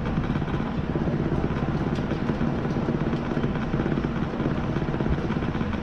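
Steady low mechanical whirr.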